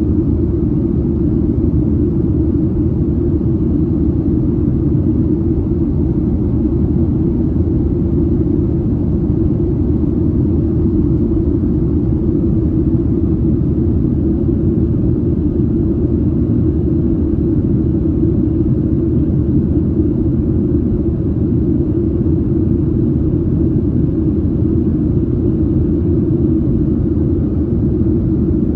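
Steady cabin noise of a Boeing 737-700 in flight: a loud, even rumble of the CFM56 jet engines and airflow, heard from inside the cabin.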